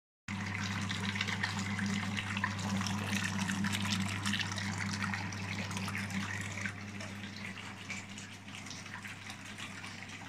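Water gushing and bubbling into a foaming filter barrel of a fish-rearing system, over a steady low electric hum. It starts abruptly and grows quieter in the second half.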